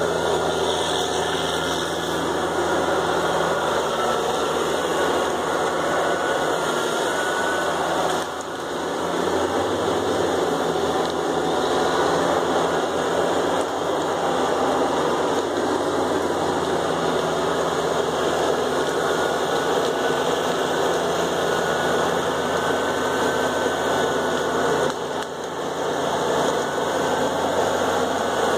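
Diesel engine of a heavy wheeled logging machine running steadily, with a faint high whine over it. The level dips briefly about a third of the way in and again near the end.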